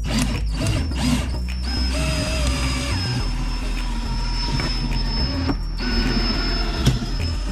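Windshield wire cut-out tool being worked, a mechanical winding and ratcheting sound as the wire pulls through the windshield urethane, with a steady high tone through most of it and a sharp click near the end.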